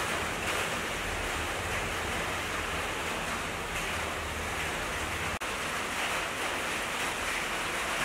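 Steady rushing noise with no distinct strokes or tones, and a brief dropout about five and a half seconds in.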